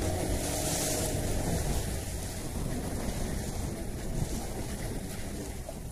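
Wind buffeting the microphone over the sea sounds around a small fishing boat on open water, a steady rumbling noise with water washing in the background.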